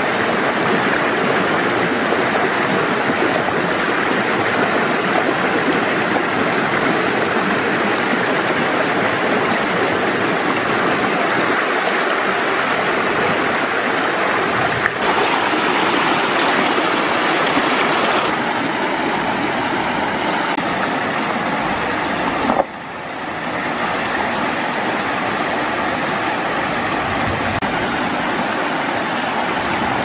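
Mountain stream rushing over rocks in small cascades: a steady hiss of running water. Its tone shifts abruptly a few times, and it dips briefly about two-thirds of the way in.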